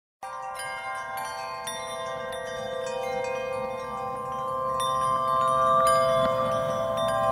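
Background music of chimes and bells: many overlapping ringing tones with repeated light high strikes, starting suddenly after a moment of silence and swelling gently.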